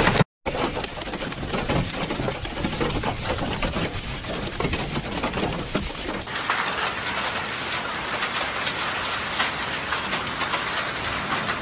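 Heavy rain and hail falling hard, a dense pattering of countless small impacts. About six seconds in, the sound turns brighter and hissier.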